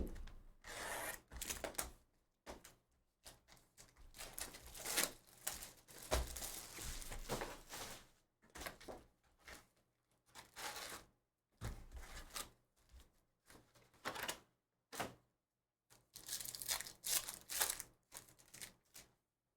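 Trading-card boxes and packs being torn open by hand: irregular tearing and crinkling of wrappers, with a few knocks.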